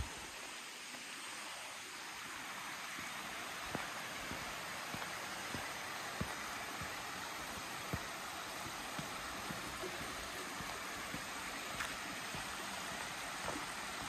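Shallow mountain stream running over rock slabs, a steady rushing of water. Soft low thumps every half second to a second, the footsteps of someone walking along the path.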